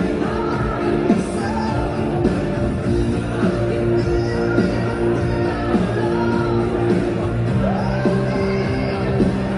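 Loud rock-style music with a singing voice and a steady beat, playing in a large hall.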